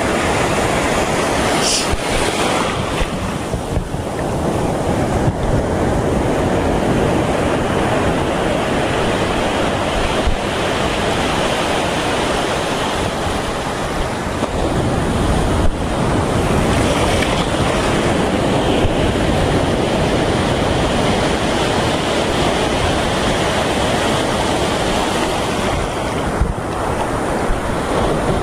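Sea surf breaking and washing over a shallow rocky shore, a steady loud rush, with wind buffeting the microphone.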